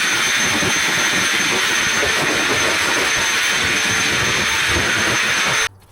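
Vacuum cleaner running steadily with a high whine over its airflow, cutting off suddenly near the end.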